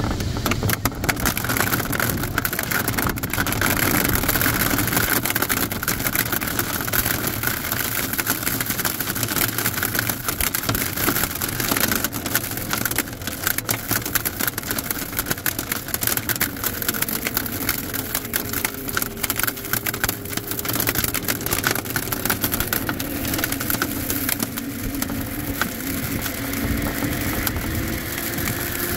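Steady rush of airflow over a glider's canopy and fuselage in flight, with precipitation striking the canopy as many rapid ticks. In the second half a faint tone dips and then rises in pitch.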